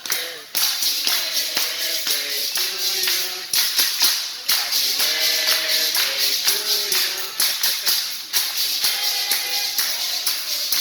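Background music with a steady beat, carried by busy percussion and a melody.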